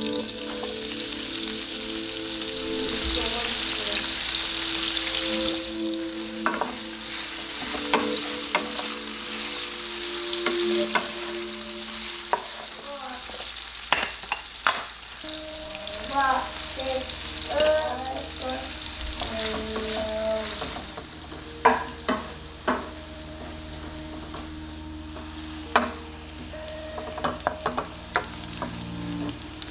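Sliced onions frying in hot clarified butter in a skillet, a steady sizzle that is loudest in the first few seconds after they go in. A wooden spoon stirs them, with sharp knocks against the pan now and then in the second half.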